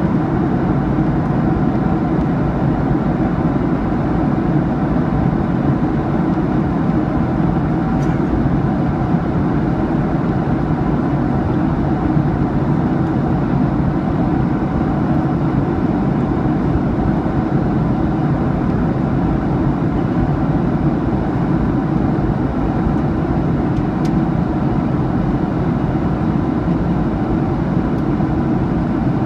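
Steady cabin noise inside a Boeing 737-800 on approach: the drone of its CFM56-7B turbofan engines and the rush of air past the fuselage, heard from a window seat over the wing.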